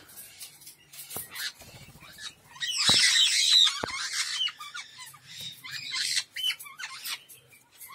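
White-bellied caiques (green-thighed nominate form) calling: scattered short high calls, with a loud burst of shrill squawking about three seconds in that lasts a second or so.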